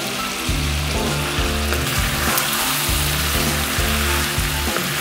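Background music over lamb pieces sizzling in a karahi, frying in their own released fat now that the cooking water has boiled off.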